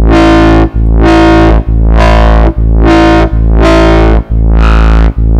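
Distorted drum-and-bass foghorn bass from the Vital software synth, one low note played again and again, about a note a second with short breaks between. Its gnarly midrange shifts from note to note as the formant wave-morph on the second oscillator, the 'pog demon' wavetable, is turned up.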